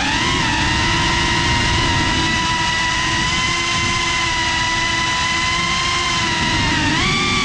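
A GEPRC Cinelog 35 cinewhoop's brushless motors and ducted propellers whining steadily in smooth, low cruising flight. The pitch rises near the end as the throttle comes up.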